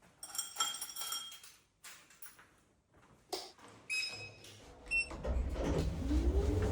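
Hard objects clinking and knocking, several short clinks with brief ringing tones, followed by a low rumbling noise that starts about two-thirds of the way in and keeps building.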